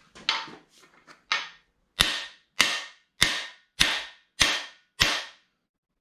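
Hammer blows on the driver bar of a cam bearing installer, driving a camshaft bearing into a 350 small-block Chevy's cam bore. A couple of lighter taps, then six hard, evenly spaced strikes about every half second or so, each ringing briefly.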